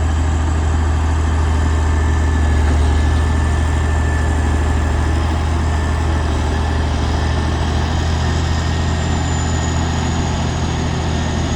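Engine of heavy road-building machinery running steadily with a strong low hum, and a faint high whine above it.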